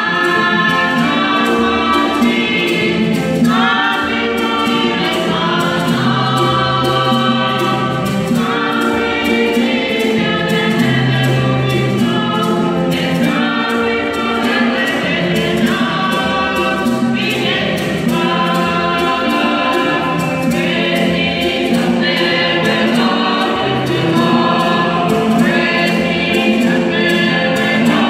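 Congolese church choir, men and women together, singing a liturgical song in parts without a break.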